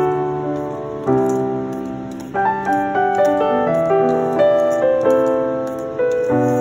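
Background piano music: a gentle melody over chords, each note struck and fading, with new notes every half-second or so.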